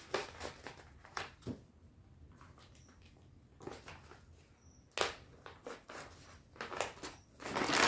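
Brown pattern paper crinkling and crackling as it is pinched and folded by hand into darts, in scattered crackles; quieter for a couple of seconds in the middle, then busier from about five seconds in.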